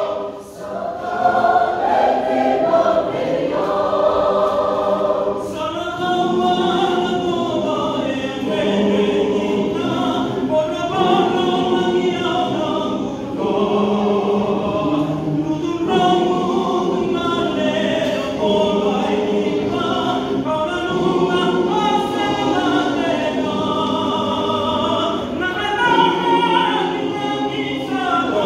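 Large mixed choir of men's, women's and children's voices singing a Fijian hymn in parts, unaccompanied. A short break about half a second in, then the full choir comes back in.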